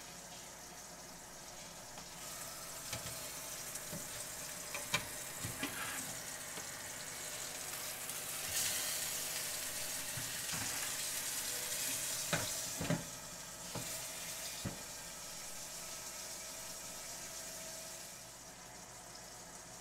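Steak sizzling on the hot sear plate of a Ninja Foodi air fryer oven. The sizzle swells and is loudest for several seconds in the middle while the oven is open and the steak is turned with metal tongs, with a string of sharp clicks and knocks. It settles back quieter near the end once the door is shut.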